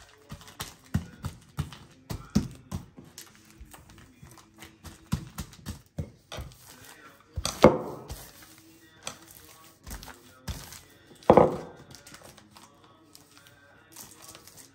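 Background music with irregular knocks and thuds throughout, two louder thumps about two-thirds and three-quarters of the way through.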